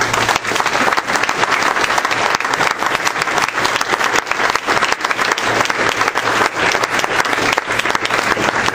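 Audience applauding, many people clapping at once, louder than the speech around it.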